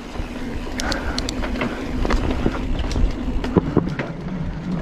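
Giant Trance 3 mountain bike riding fast down dirt singletrack, heard from a camera on the rider: wind on the microphone and tyre rumble, with clicks and rattles from the bike over the bumps. Near the end the tyres roll onto wooden boardwalk planks, with a run of knocks.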